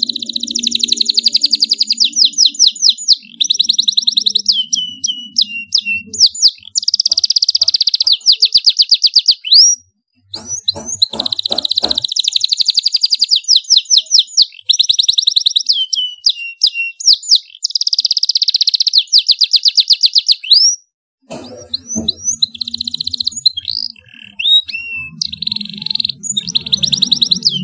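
Domestic canary singing loudly in a long, continuous song of fast trills and rolling phrases, broken by two short silences.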